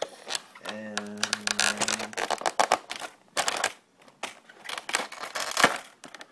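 Clear plastic packaging crinkling and clicking in irregular bursts as a tightly held piece is worked loose from a toy figure's plastic tray. A steady low hum runs for about a second and a half near the start.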